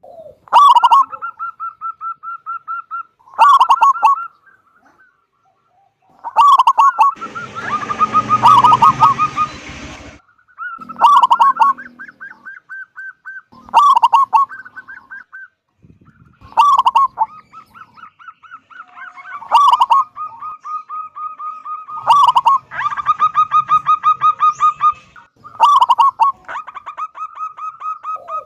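Zebra dove (perkutut) singing its repeated phrases, roughly every three seconds. Each phrase is a loud opening note followed by a fast run of clipped, stuttering coos. A burst of rushing noise runs under the song from about seven to ten seconds in.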